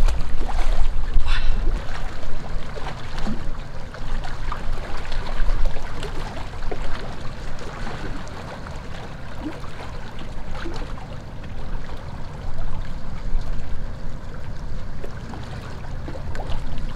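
Wind buffeting the microphone in a low rumble, strongest in the first couple of seconds, with water lapping at the shoreline and a few small clicks.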